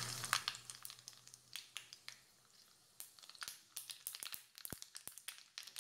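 Black mustard seeds crackling in hot oil in a kadai as a tadka starts: small, irregular pops and clicks, a little quieter about two seconds in, then coming thicker toward the end as the seeds begin to splutter. The crackle is the sign that the oil is hot enough for tempering.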